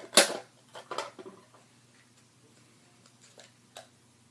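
Hard plastic clicks and knocks from handling a toy foam-dart blaster and its darts: a quick cluster of sharp clicks in the first second and a half, the loudest just after the start, then a few faint ticks later on.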